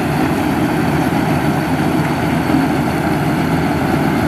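Maxxi Bimo 102 combine harvester with a corn header running steadily as it works through standing corn: an even engine and machinery drone.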